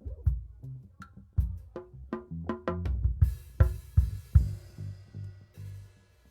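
Live drum kit and bass guitar playing, with snare, kick drum and hi-hat hits and a cymbal crash about three seconds in.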